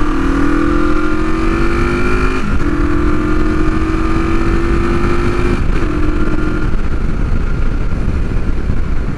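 1973 Honda CB450 parallel-twin engine pulling under acceleration, its pitch climbing steadily. It drops back as the rider upshifts about two and a half seconds in and again around five and a half seconds, then the engine tone fades under a steady rumble of wind on the microphone.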